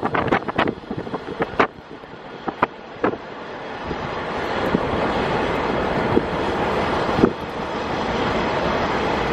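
Onboard a KiHa 48 diesel railcar running with a window open: wheels clicking over rail joints at first, then the running noise and diesel engine swell from about four seconds in and hold steady, with a few more clicks.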